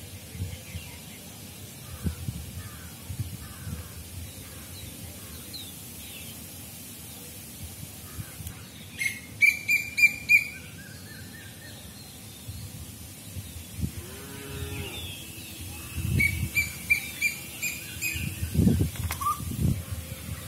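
Birds chirping in quick repeated notes over a steady outdoor background hiss, with a short low animal call about two-thirds of the way in.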